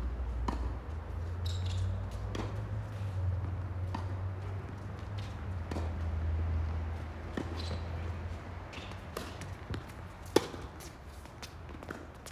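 Tennis balls being hit and bouncing on a hard court: sharp pops about every one and a half to two seconds, with a louder one about ten seconds in, over a low rumble.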